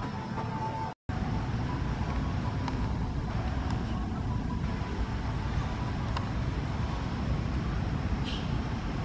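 Steady low outdoor background rumble with no distinct events, cutting out for an instant about a second in.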